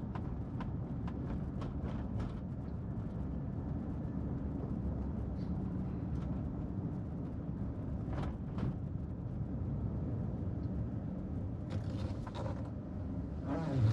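Steady low rumble of a car's engine and tyres on the road, heard from inside the cabin while driving, with a few faint clicks and rattles.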